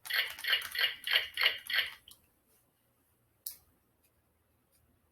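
A person's voice in a quick run of short repeated bursts, about three or four a second, that stops after two seconds; a single brief click comes about a second and a half later.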